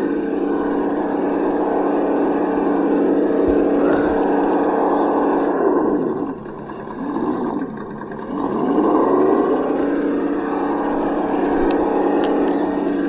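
Traxxas TRX-6 6x6 RC rock crawler driving over rocks, its drive running at a steady pitch, then twice easing off and falling in pitch, about six and seven and a half seconds in, before rising back up.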